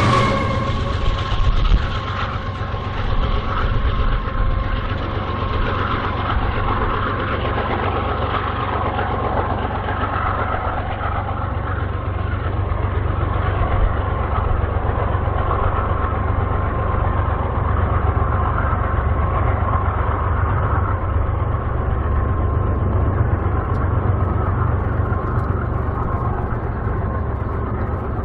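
Freight train rolling by: a steady rumble of heavy running gear on the rails, with a thin high tone running through it.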